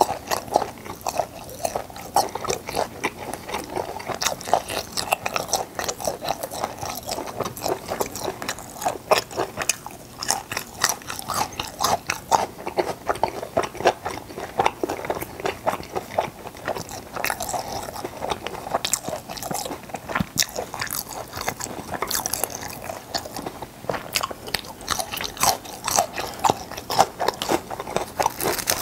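Close-miked chewing of gwamegi, semi-dried fish: a steady run of small irregular mouth clicks and smacks as it is chewed.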